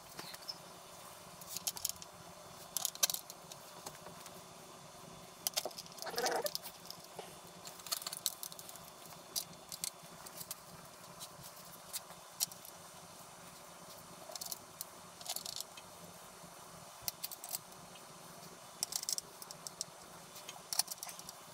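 Scattered light metallic clicks, clinks and scrapes of small parts and tools being handled, coming irregularly in short bursts.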